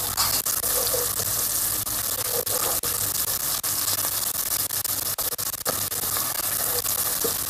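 Chopped green peppers and red paste sizzling and crackling in hot olive oil and butter, stirred with a plastic spoon as they fry until fragrant.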